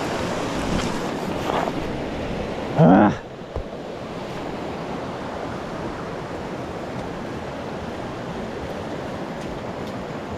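Steady rushing of a mountain stream's water. About three seconds in, a man gives a short exclamation that rises in pitch.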